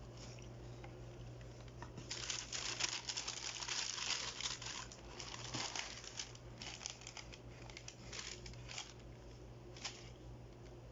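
Paper packaging crinkling and rustling as a new pair of running shoes is unboxed. The rustling comes in thickly about two seconds in, thins to scattered crinkles, and ends with one short sharp rustle near the end.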